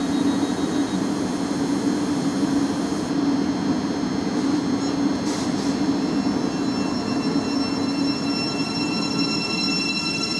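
Great Northern Class 717 electric multiple unit moving along the platform, with a steady low hum. A high whine builds from about halfway through.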